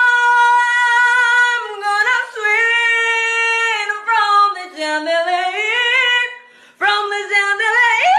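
A woman singing loudly without accompaniment: long held high notes with vibrato, and a short break about six and a half seconds in.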